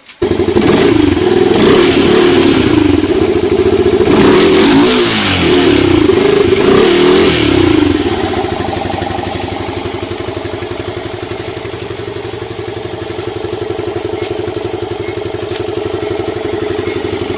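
A Yamaha R15 2.0's single-cylinder engine, breathing through an aftermarket K&N air filter, is revved several times for about the first eight seconds and then settles into a steady idle.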